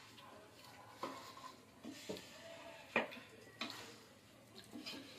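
Wooden spatula stirring and scraping rice-and-lentil khichuri in a heavy pot, with irregular knocks of the spatula against the pot, the sharpest about three seconds in.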